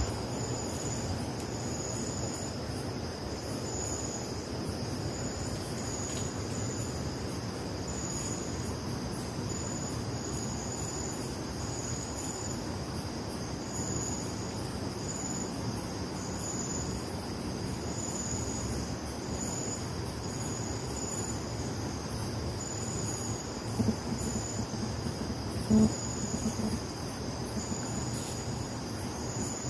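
Night insects, crickets, calling together: one keeps up a steady high trill while another gives short chirps about once a second, over a low background rumble. Two brief louder low sounds come near the end.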